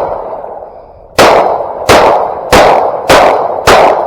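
Shotgun fired in rapid succession: five loud shots about two-thirds of a second apart, each ringing off briefly, with the tail of a shot just before still dying away at the start.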